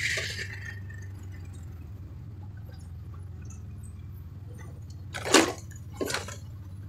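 Steady low drone of a vehicle driving, heard from inside the cabin. Two short, loud bursts of noise come near the end, the first louder than the second.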